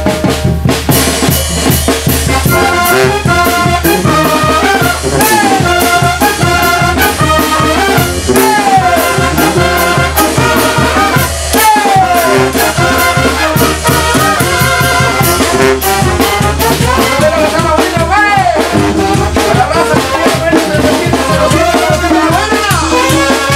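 Mexican brass band (banda) playing: trumpets and trombones carry the melody, with some sliding notes, over a busy beat on tarolas (snare drums) and drum kit.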